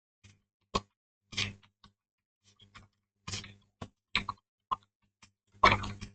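Computer keyboard keys being pressed one at a time, a scattering of irregular clicking keystrokes with a few quick runs of two or three.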